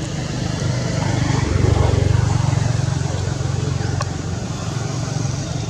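A steady low engine hum that swells louder for about a second, starting about a second and a half in.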